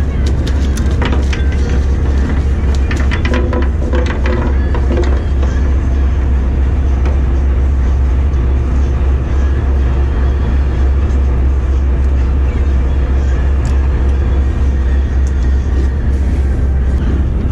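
Steady low drone of the party boat's engine. Over it, a run of sharp clicks and knocks in the first few seconds as a dogfish flops on the wet deck and is unhooked by hand.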